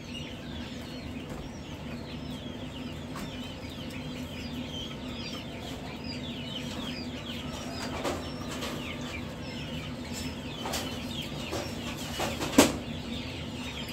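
Many hatchling chicks in brooder cages peeping continuously in short high chirps, over a steady low hum. A few sharp knocks come through, the loudest about twelve and a half seconds in.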